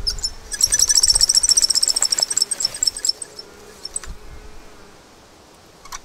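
Improvised wooden pulley squeaking as the rope runs through it: a fast, even train of high squeaks, about twenty a second, that stops about three seconds in. Dry leaves rustle and thump underfoot around it.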